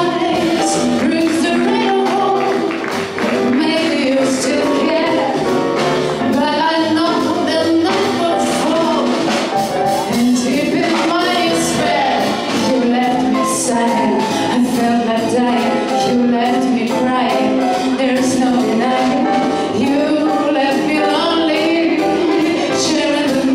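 Small jazz band playing live: a woman singing into a microphone over double bass, drum kit with cymbals, guitar and piano.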